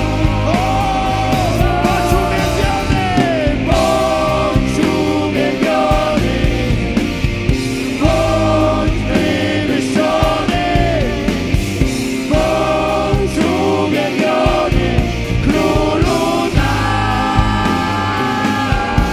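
A worship band playing live: several voices singing together over bass and a steady drum beat.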